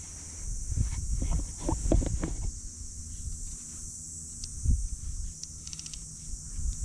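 Close handling noise of a fly rod and fly line worked by hand against the microphone: irregular knocks and rubbing, loudest in the first two and a half seconds and again near the middle, with a short run of quick clicks a little after five seconds. A steady high hiss runs underneath.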